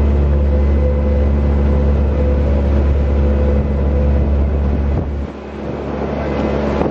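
Engine of a motorized outrigger boat running steadily as it cruises over open water, with a deep rumble that eases about five seconds in.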